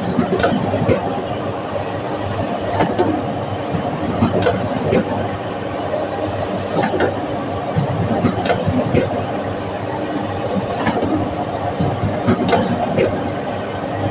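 Digital printing press running: a steady mechanical hum with irregular clicks and clacks as printed sheets are fed out onto the delivery stack.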